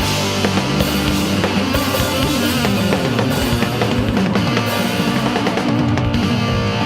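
Loud rock music with electric guitars and a full drum kit playing, no singing.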